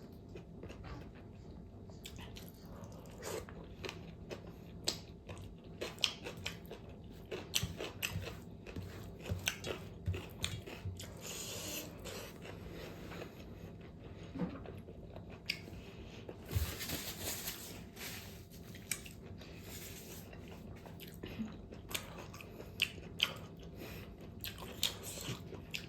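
A person chewing and biting pork fat close to the microphone: irregular wet mouth clicks and smacks with occasional crunches, and a couple of longer hissy stretches.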